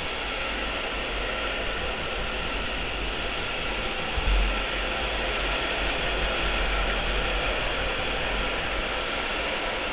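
Freight train of silo wagons rolling past close by: a steady rumble and rattle of wheels on the rails, with one low thump about four seconds in.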